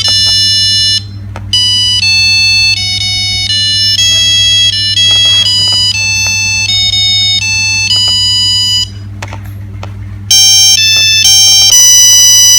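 Nokia 3610 mobile phone playing a ringtone: a single-voice melody of buzzy beeping notes in quick succession. The tune breaks off briefly twice, about a second in and near nine seconds, and plays louder from about ten seconds in.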